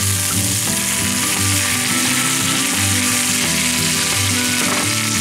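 Sirloin steak sizzling as it sears in a cast-iron skillet alongside frying diced potatoes and onions, turned over with a spatula to sear the second side.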